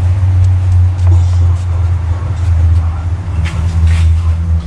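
A steady low mechanical drone, with a few light metallic clicks about three and a half and four seconds in as a spanner is fitted onto the belt tensioner.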